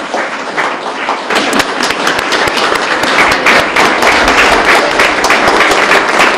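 Audience applauding, the clapping building up over the first few seconds and then staying loud.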